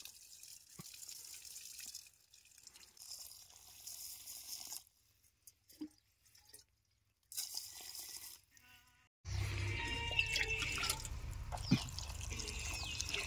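Water splashing and dripping during cooking, in several short cut segments. The sound gets louder about nine seconds in, with a low hum under it.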